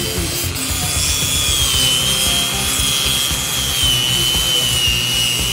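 Arbortech Mini Grinder's motor running with a steady high whine that wavers slightly in pitch, its sanding head grinding down overwood on a wood inlay medallion. Background music plays along.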